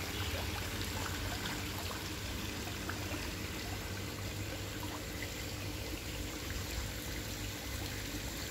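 Water pouring steadily from an inlet pipe into a concrete koi pond, a continuous splashing flow.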